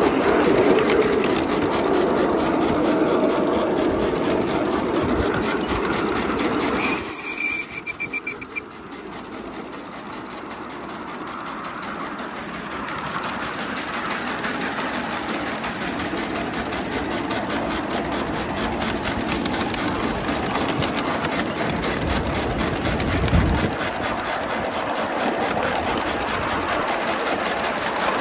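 5-inch gauge live-steam GWR 94xx pannier tank locomotive running along the track, with rapid exhaust chuffs and wheels rattling over the rails. About seven seconds in, a brief high hiss with a thin tone sounds. Then the running sound drops away and slowly builds up again.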